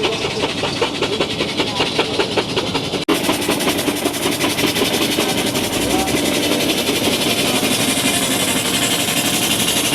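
Steam-engine-driven circular saw bench running: a fast, even knocking rhythm for about three seconds, then, after a sudden break, a steadier and denser running sound with more hiss.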